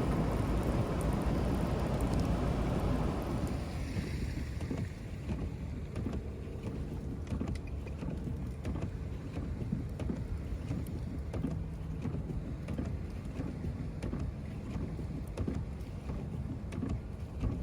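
A vehicle passing on a wet, snowy street, its tyre hiss fading out about four seconds in; after that, quieter outdoor noise with scattered faint ticks.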